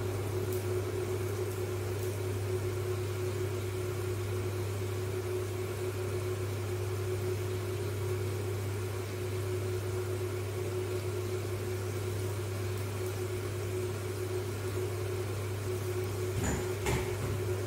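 Steady low mechanical hum with a constant tone above it, unchanging throughout, with a couple of soft knocks near the end.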